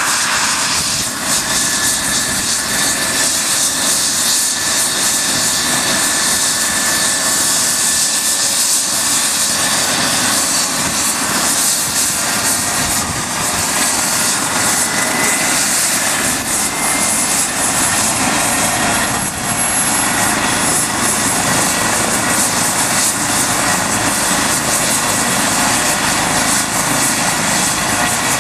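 Eurocopter EC135 P2 helicopter running on the ground before lift-off. Its twin turboshaft engines, main rotor and Fenestron tail rotor make a steady, loud rush and whine, with thin high whistling tones.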